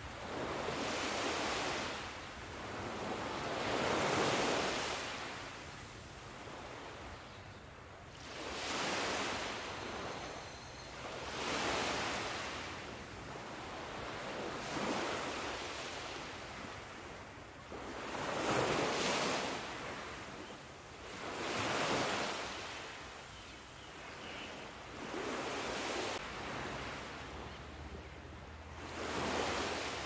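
Ocean waves breaking and washing up on a beach, one after another, each swelling and falling away about every three seconds.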